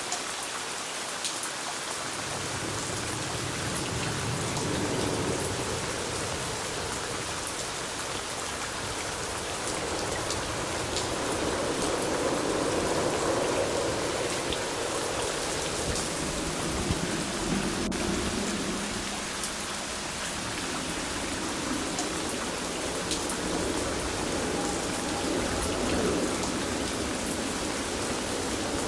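Steady rain falling on surfaces, with individual drops ticking through the hiss, and a low rumble that swells and fades a few times.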